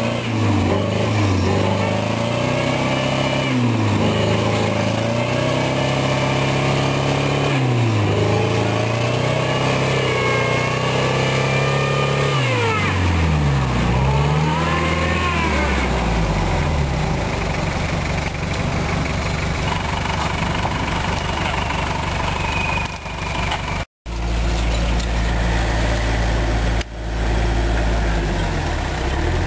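Toyota Land Cruiser 70-series turbo engine revving up and down several times as it pulls through a deep mud rut, then running more steadily. After a cut near the end, a Suzuki Vitara's engine runs steadily.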